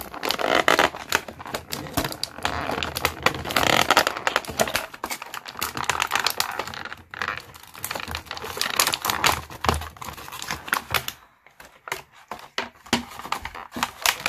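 Clear plastic packaging crinkling and crackling as it is handled and pulled away from an action figure. The sound comes in louder bursts, with a short lull near the end.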